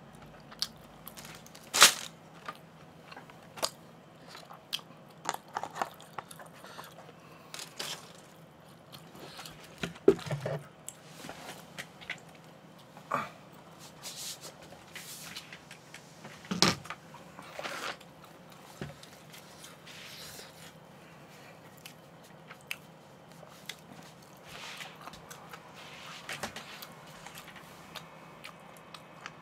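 Eating sounds close to the microphone: chewing, with scattered clicks and several sharper knocks spread through.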